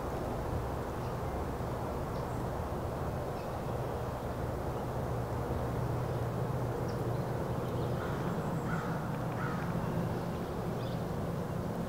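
Crows cawing from the treetops, with two short caws about a second apart near the end, over a steady low background rumble.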